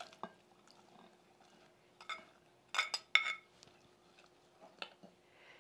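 Metal spoon scraping sliced onion off a clay plate into a glass bowl: a few light clicks and scrapes, with two ringing clinks of spoon on dish about three seconds in.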